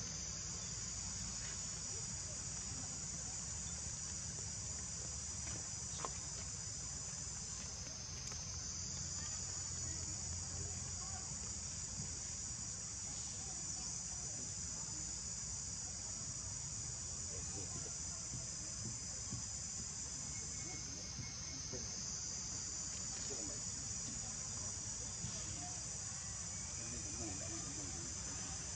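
Steady high-pitched chorus of insects, swelling and easing slowly, over a low rumble, with a single faint click about six seconds in.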